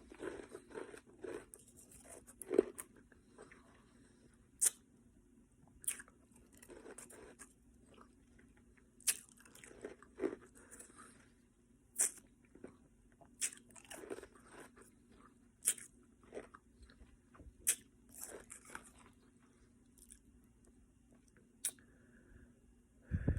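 A person chewing ice, crunching it between the teeth. Sharp cracks come every second or two, with softer chewing in between.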